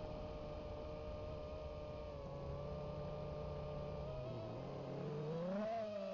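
FPV quadcopter's motors and propellers whining at a steady pitch, then rising and falling in pitch near the end as the throttle changes.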